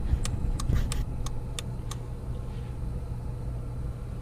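Steady low hum of a ClimateMaster geothermal heat pump and its flow center running, with a quick run of about seven sharp clicks in the first two seconds.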